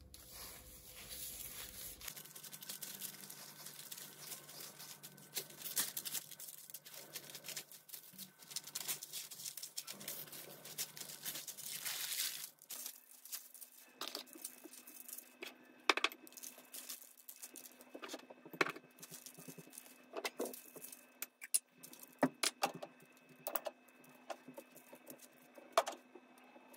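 Baking parchment crinkling and rustling under raw lamb shoulders as they are handled and turned. About halfway through this gives way to scattered light ticks and pattering as dried spices are sprinkled onto the meat and the paper.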